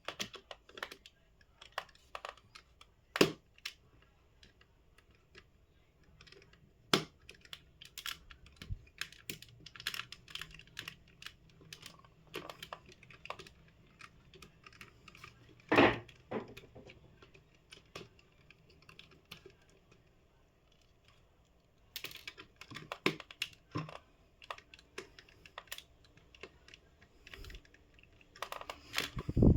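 Irregular small clicks, taps and scrapes of a screwdriver working the screws out of a mosquito racket's plastic housing and the parts being handled, with a few louder knocks and a quieter pause about two-thirds of the way through.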